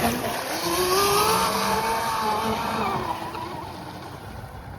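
Brushless electric motor of a Proboat Blackjack 26 RC boat, 3S with a 4300 kV motor, whining under throttle: the pitch rises over the first second, holds, then drops off about three seconds in, over a steady hiss.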